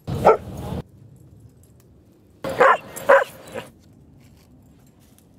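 Dog barking: one bark at the start, then a quick run of three barks about halfway through.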